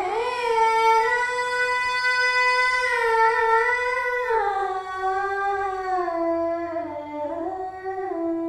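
A woman's voice singing one long held note in raga style. It slides down in pitch about four seconds in and wavers lower again near the end.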